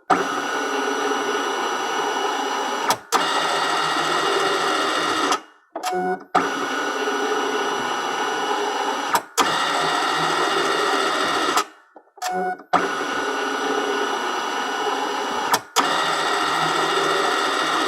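Document scanner running through three scan passes about six seconds apart, each a steady motor whine with a sharp click about halfway through. Short pauses with a few clicks come between the passes.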